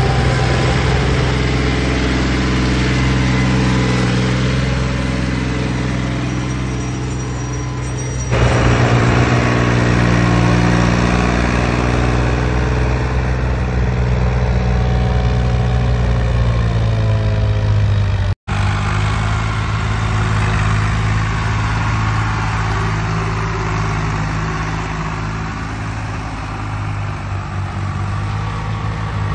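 Diesel tractor engines running steadily, across several clips; the sound changes abruptly about 8 seconds in and drops out for an instant about 18 seconds in.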